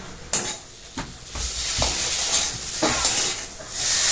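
Spice paste (masala) frying in hot oil in a pan, sizzling while a spoon stirs and scrapes it, with two sharp knocks of the spoon on the pan in the first second. The sizzle gets louder about a second and a half in and is loudest near the end.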